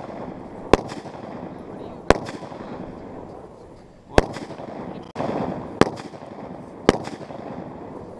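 Rifle firing five single shots, unevenly spaced one to two seconds apart, each a sharp crack with a short trailing echo.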